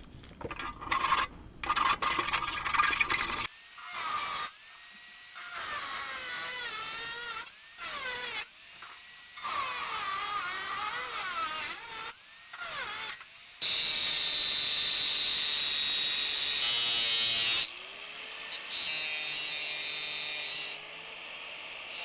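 Loud scraping and clattering, then a small electric power tool switched on and off again and again. Its motor whines up in pitch at each start and runs for one to four seconds at a time, the longest run a steady high whine.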